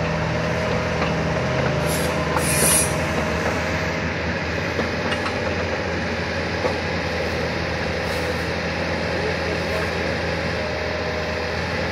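Wacker Neuson 50Z3 mini excavator's diesel engine running steadily, with a short hiss about two and a half seconds in.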